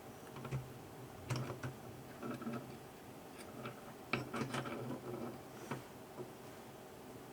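Irregular light clicks and taps of hands working small parts, with the sharpest click about four seconds in, over a faint steady low hum.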